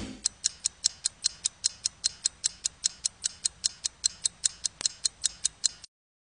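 Steady, even ticking like a clock, about five crisp clicks a second, heard on its own in a break of the song; it stops abruptly near the end.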